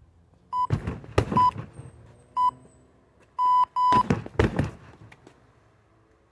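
An electronic round timer sounds three short beeps about a second apart and then one longer beep, the usual countdown pattern, while about five kicks land hard on a wrapped standing heavy bag, the last few right after the long beep.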